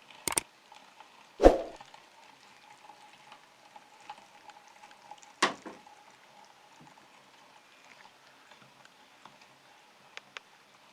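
Tomato being crushed in a meat grinder: soft wet squelching and crackling, with a sharp double click near the start and two louder knocks, about a second and a half in and a little past five seconds.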